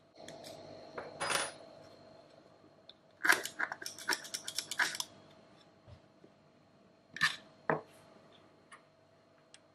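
Small plastic and metal parts of a 3D-printed tank cap being handled and set down on a wooden table. A rustle of handling comes first, then a quick run of light clicks and clatters, then two more knocks near the end.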